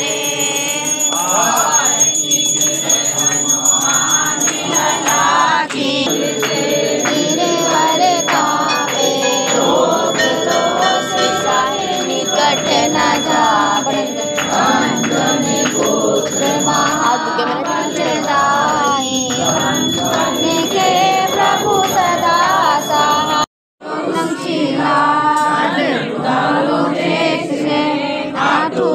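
Devotees singing a Hindu aarti hymn together, with temple bells ringing steadily through most of it. The sound cuts out for a moment about three-quarters of the way in, then the group singing carries on.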